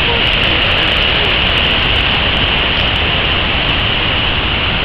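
Whitewater rapids of a mountain creek roaring below: a loud, steady rush of water with no let-up.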